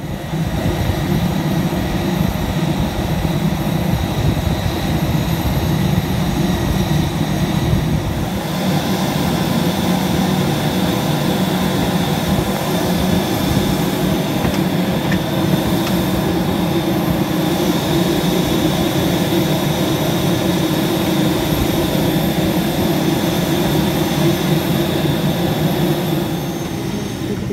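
Steady aircraft noise of an Airbus A320neo heard from inside the cabin, with a loud continuous hum and a thin high whine, changing slightly in tone about a third of the way in and easing near the end.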